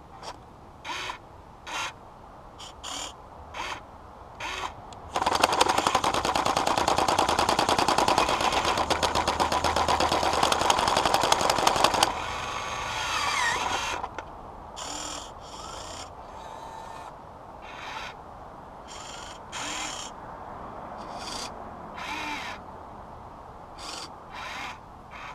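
Huina 1580 RC excavator's jackhammer attachment hammering rapidly for about seven seconds as it chips at ice, with short bursts of the excavator's small electric motors whirring before and after as the arm is moved.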